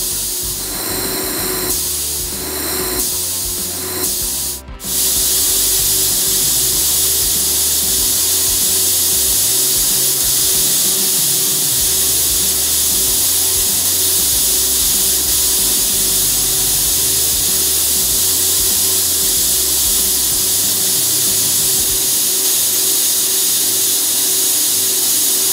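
LightWELD 1500 handheld laser welder with wire feed welding stainless steel pipe and flange: a steady high hiss with a faint hum underneath. A shorter, uneven stretch in the first few seconds breaks off briefly about five seconds in, then the hiss runs on without a break.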